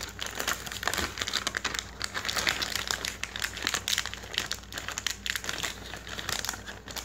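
Plastic heater-meal bag crinkling irregularly as it is handled while water is poured into it.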